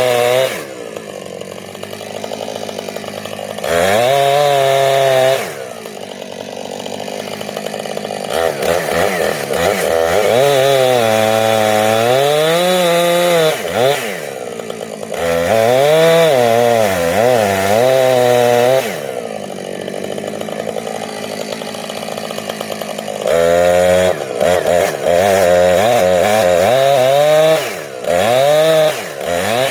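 Two-stroke chainsaw revved to full throttle in several long bursts, dropping back to idle between them, as it cuts through a dead ash tree.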